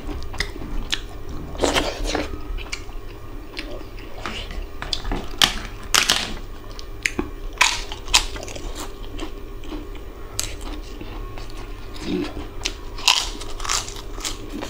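A man eating mutton curry and flatbread with his hands: irregular wet chewing, bites and lip smacks, over a faint steady hum.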